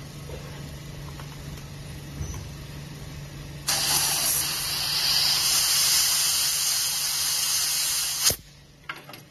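Steady low machine hum, joined about four seconds in by a loud, even hiss that stops abruptly with a sharp click about four seconds later.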